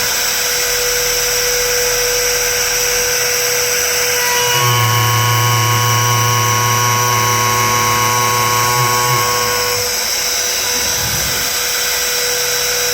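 A CNC machine's spindle runs with a steady high-pitched whine. From about four and a half seconds in to nearly ten seconds, a lower steady hum with a whine above it joins in, as the machine's drive motors move it, then drops away.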